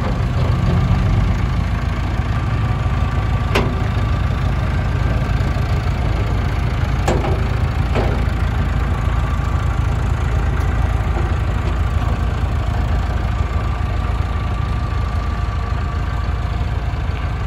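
Vehicle engine running steadily at low speed as a flatbed pickup slowly hauls a tractor along a gravel road: a continuous low rumble, with three sharp clicks in the first half.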